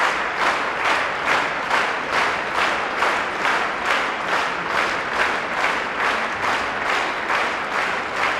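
Theatre audience applauding in unison, a steady rhythmic clap about two to three times a second.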